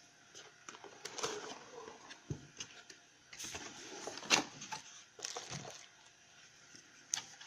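Packaging and accessories being handled out of a cardboard box: irregular rustling and crinkling with light clicks and knocks, the sharpest knock about four seconds in.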